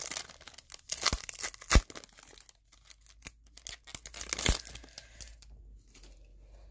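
Foil trading-card pack being torn open and crinkled by hand. Sharp crackles and snaps come in the first two seconds, another burst a little past halfway, then only faint handling near the end.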